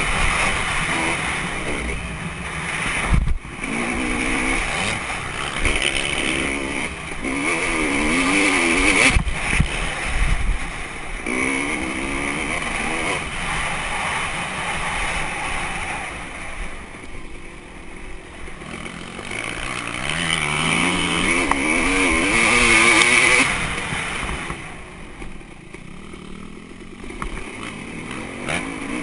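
Off-road motorcycle engine heard from the rider's camera, revving up and falling back again and again as the throttle is opened and closed. The throttle comes off twice for a couple of seconds, around two-thirds of the way through and again near the end. Two sharp knocks come about three and nine seconds in.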